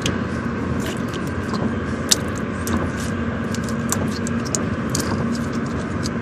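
Steady low rumble like a vehicle running, with many small sharp clicks and crackles scattered through it.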